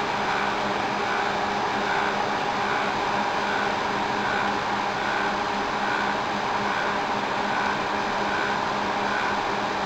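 Sun Fire server running: an even rush of cooling-fan noise with a steady low hum, and a faint higher tone pulsing about once or twice a second, while its RAID array of Fibre Channel drives is busy with a data restore.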